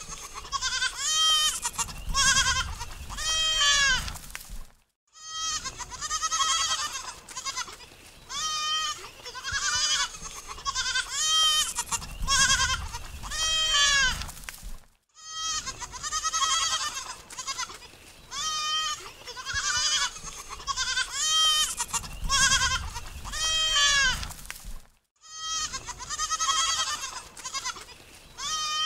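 Goats bleating again and again in short, wavering calls. The recording repeats about every ten seconds, with a brief silent break between repeats.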